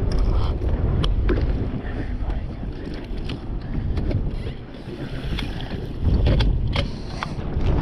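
Strong wind buffeting the microphone on a bass boat in choppy water, with waves slapping the hull and scattered sharp knocks.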